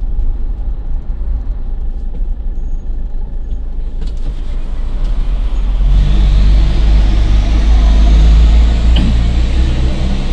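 Car engine and road noise heard from inside the cabin: a steady low rumble that grows louder from about six seconds in, with a stronger engine hum and more hiss.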